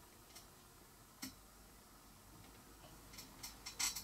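Faint, scattered clicks and ticks of hands and fingernails working on a fly at the tying vise: a single tick about a third of a second in, another just over a second in, and a quick cluster of louder clicks near the end.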